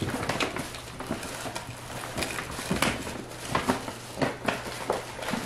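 Stacked plastic cups being handled and pulled apart: irregular light plastic clicks and rustling.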